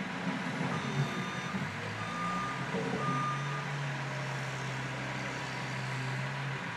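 A Cat skid steer loader's backup alarm beeping three short times in the first half, over the steady running of diesel engines.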